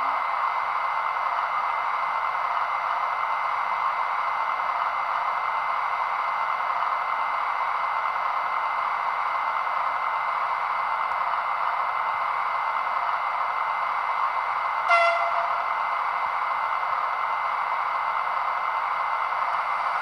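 Sound decoder in an Acme E402B electric locomotive model playing the standing locomotive's steady cooling-fan whoosh, sampled from a real E402, through the model's small loudspeaker. About fifteen seconds in, a short horn toot sounds once.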